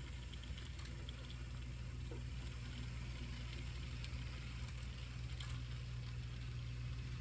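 HO-scale Proto 2000 SD7 model locomotive running under DC power, with no sound decoder: a steady electric motor and gear drivetrain hum, with a few faint light clicks.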